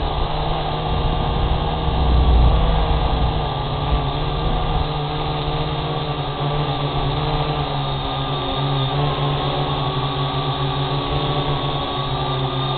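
Syma X8G quadcopter's motors and propellers humming steadily in flight, with a slight wavering in pitch. A low rumble sits under it in the first couple of seconds.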